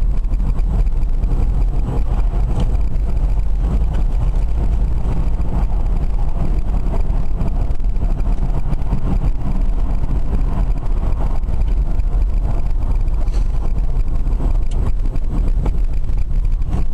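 Steady low rumble of road and wind noise inside an electric-converted BMW driving at motorway speed.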